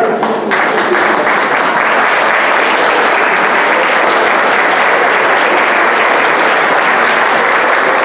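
Audience applauding, loud and steady, swelling in about half a second in.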